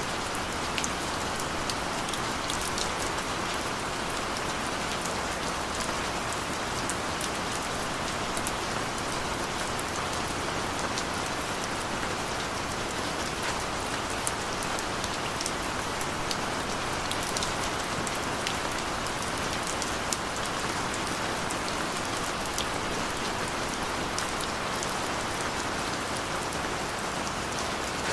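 Steady, gentle rain falling, a constant hiss with fine scattered drop ticks.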